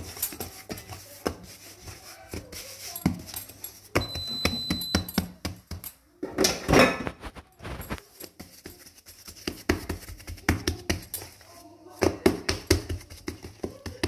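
Hands pressing and patting a ball of semolina pizza dough flat on a countertop: a run of soft, irregular taps and knocks, with one louder, longer rubbing sound about halfway through.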